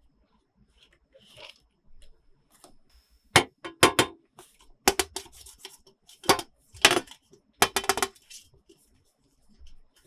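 Hard plastic toy playset pieces clicking and clacking as they are handled and set down: small clusters of sharp clicks starting about three seconds in, after faint rustling.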